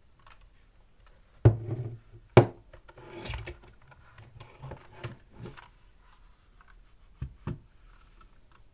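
Objects being handled on a desk: a few hard knocks, the two loudest about a second apart early on, a stretch of rubbing in between, then lighter knocks and a close pair near the end.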